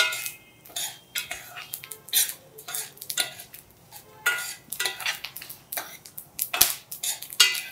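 Metal spoon scraping and clinking against a stainless-steel pan in irregular strokes, stirring peanuts, lentils and dried red chillies frying for a tempering.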